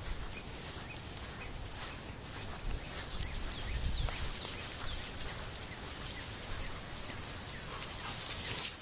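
Small birds chirping in short, high whistles and quick gliding notes over an outdoor hiss, with gusts of wind rumble on the microphone and rustling of grass and brush that swells near the end.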